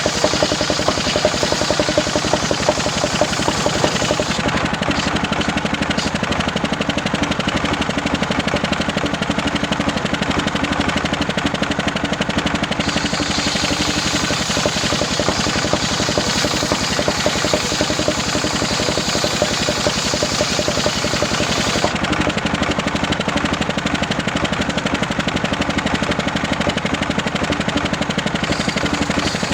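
Engine-driven homemade circular saw running steadily while sawing waru wood, the engine's rapid firing pulse under a harsh hiss. The hiss in the upper range drops away about 4 seconds in and again about 22 seconds in, and returns about 13 and 28 seconds in.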